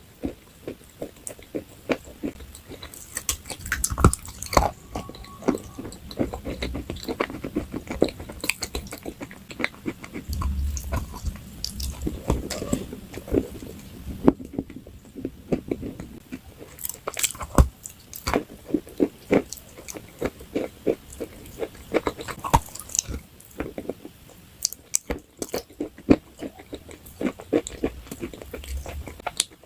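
A person biting and chewing something crunchy: irregular sharp crunches, at times several a second, with a short pause about halfway through.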